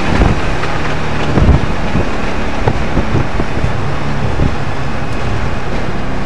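Audi RS 4's 4.2-litre V8 engine running hard at track speed, heard from inside the cabin under heavy wind and road noise, with a couple of brief knocks about a second and a half in.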